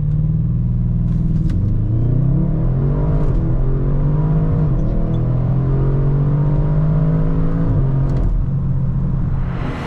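Audi RS6's 4.0-litre twin-turbo V8 under hard acceleration, its pitch climbing through each gear and dropping back at each upshift of the 8-speed automatic.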